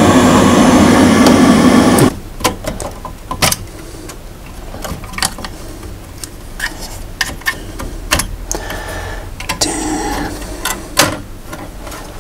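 Glow-worm combi boiler's fan running loudly with a rough, buzzing mechanical noise, the noise the uploader traces to a faulty fan. It cuts off abruptly about two seconds in, leaving light clicks and taps of a screwdriver on the boiler's circuit board.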